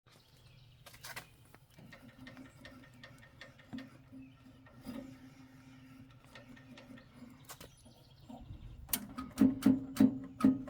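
Car engine running with a steady hum and scattered ticks; about nine seconds in, loud knocks come in at about three a second. This is the engine knock under investigation, made audible by disconnecting the cooling fan.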